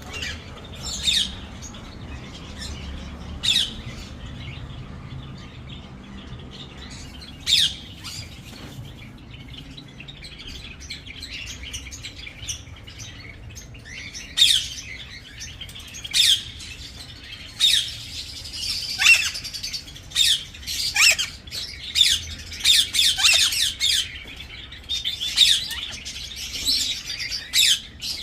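Caged pet birds giving short, sharp squawks and chirps: a few scattered calls at first, then frequent, overlapping calls through the second half.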